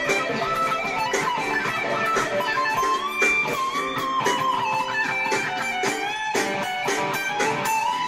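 Electric guitar played through a BOSS Power Stack distortion pedal, improvising in E minor: a run of picked notes with a held lead line that bends and slides in pitch.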